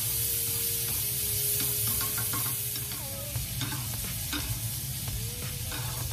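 Pigeon breasts frying with onions and garlic in foaming butter in a hot pan, sizzling steadily, while a metal spoon scrapes and clicks against the pan as the butter is basted over the meat.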